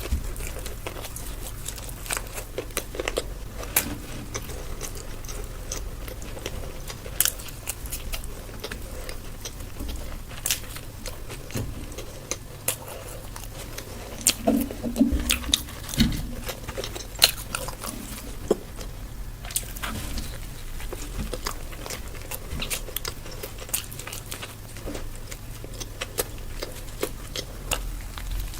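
Close-miked eating: a person biting and chewing food, with many short crunchy clicks and wet mouth sounds at an irregular pace.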